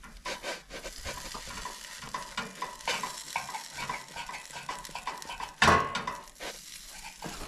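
Grilled cheese sizzling in a cast-iron skillet as a chef's knife saws through it and scrapes against the pan, with a wooden spatula holding it in place. There is a louder scrape of the knife on the pan near the end.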